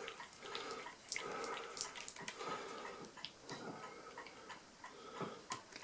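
Screwdriver turning out the small screws that hold the control register on an Addo Multo Model 3 mechanical calculator: scattered small clicks and scrapes of the blade in the screw slots, with the screwdriver a little small for the screws.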